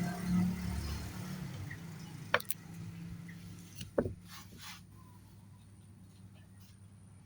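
A low steady hum that fades in the first second or so, then a few sharp clicks and one louder knock about four seconds in, followed by faint scattered ticks.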